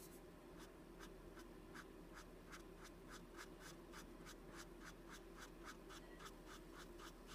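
A white colored pencil scratching on stamped card stock in short, quick, even strokes, about four a second. The sound is faint.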